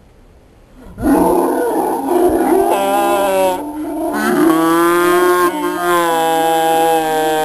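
Girls' voices letting out a loud, long wail that starts about a second in. It wavers at first, then holds steady on one pitch, with a second, lower voice underneath.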